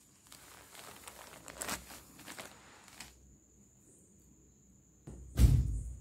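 A silk cotton saree rustling as it is handled and unfolded, for about three seconds. Near the end comes a loud, low thump.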